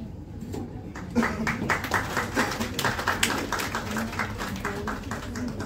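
A small audience clapping. It starts about a second in and dies down near the end.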